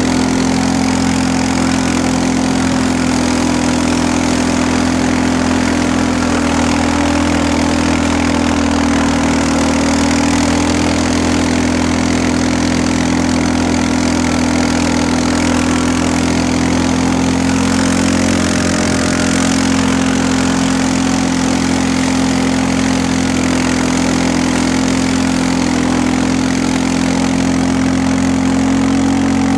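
Engine of a vehicle towing a sled on a snowy road, running steadily at an even pitch.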